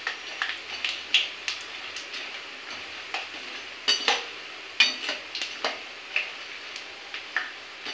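Perforated steel skimmer scraping and clinking against a frying pan as boondi are stirred in hot oil. The clicks come irregularly, one or two a second, over a low, steady sizzle of frying.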